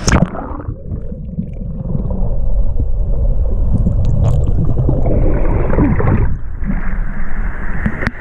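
Water splashing and sloshing against a GoPro's housing as it dips under a river's surface, then muffled water noise heard through the submerged camera.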